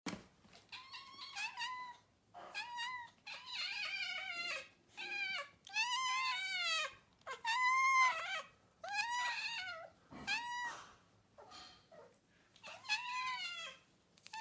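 A cat meowing over and over: about a dozen separate meows, each rising and then falling in pitch, with short pauses between them.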